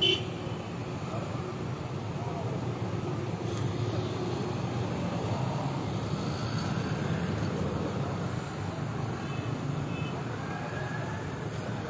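Steady low rushing noise of fast-flowing floodwater, with a brief knock of handling noise right at the start.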